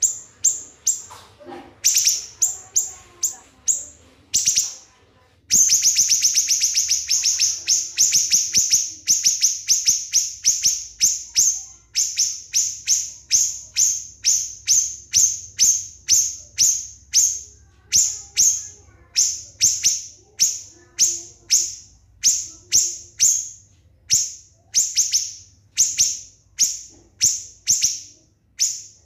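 Small songbird calling in long series of sharp, high chirps. There is a dense rapid run about five seconds in, then evenly spaced notes about two a second.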